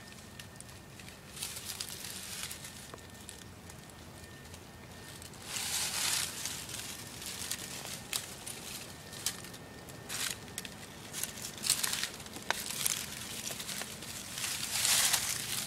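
Dry fallen leaves crackling and rustling as feet move through deep leaf litter, in irregular bursts with small clicks, loudest about six seconds in and again near the end.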